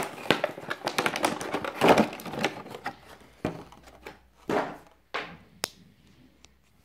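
Toy box packaging being handled and opened by hand: a quick run of crackling, rustling clicks that thins out after about three seconds to a few separate clicks and taps.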